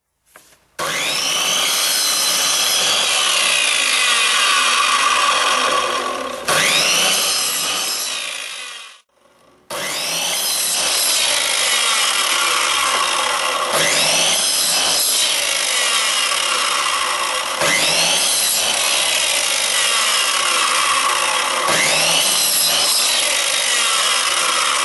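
Mitre saw running and cutting a thin wooden strip into short pieces, with a new cut starting about every four seconds. The sound drops out briefly about nine seconds in.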